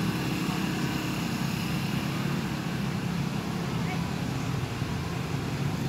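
Crowd chatter from a street procession over the steady running of a vehicle engine.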